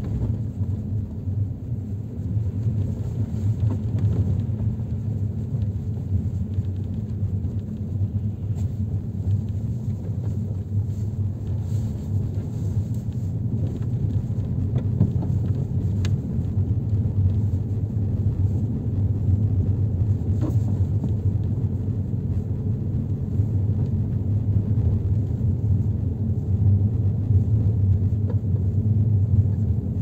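Steady low rumble of a vehicle travelling along a road, heard from on board, with a few faint knocks.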